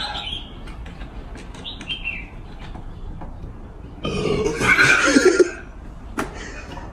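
A person's loud burp about four seconds in, lasting about a second and a half, brought up by drinking cola.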